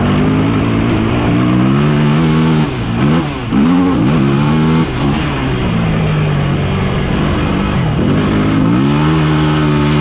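Off-road vehicle engine running under load, heard from on board, its revs climbing and falling as the throttle is worked. The revs drop briefly about three seconds in, rise sharply again about a second later, hold steady, then climb once more near the end.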